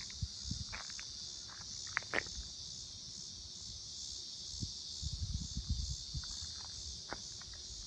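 Night insects chirping in a steady, continuous high-pitched chorus, brought out in the daytime by the darkness of a near-total solar eclipse. A few low thumps come and go, most of them about five to six seconds in.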